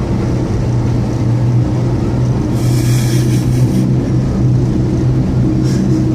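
Four-wheel-drive vehicle's engine running steadily in low-range four-wheel drive as it pushes through deep floodwater, with a brief hiss about halfway through.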